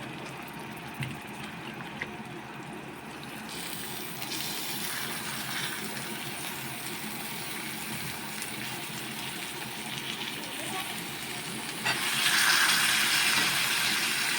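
Raw mutton pieces frying in spiced onion masala in a kadai: a hissing sizzle that picks up a few seconds in and turns much louder and brighter about twelve seconds in. There are two light clicks at the start.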